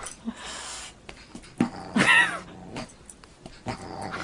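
A cat and a dog scuffling in play: a few light knocks and scrabbles, with one short animal cry about two seconds in.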